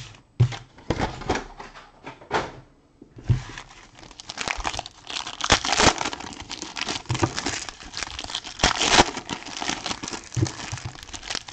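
Foil wrappers of trading-card packs crinkling and tearing as they are opened by hand. The rustling crackles irregularly, stops briefly about three seconds in, then grows denser, with a few light knocks near the start as packs are set down.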